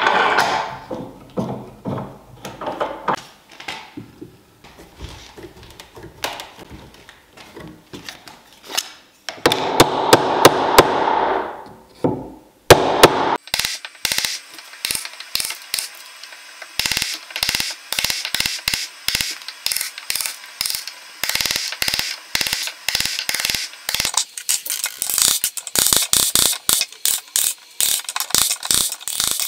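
Wood chisel chopping a notch in an oak block: a long, steady run of sharp taps, several a second, starting about halfway in. Before it come irregular knocks and a few seconds of scraping noise.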